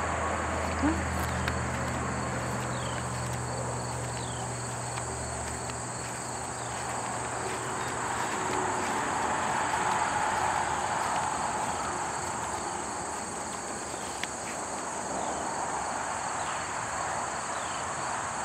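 Steady high-pitched chorus of insects trilling in a summer field, with a low hum underneath that fades out about six seconds in.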